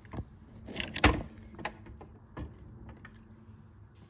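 Metal clicks and clanks of a pressure cooker's lid and handle being handled as it is closed up again, with one sharp clack about a second in and a few lighter clicks around it.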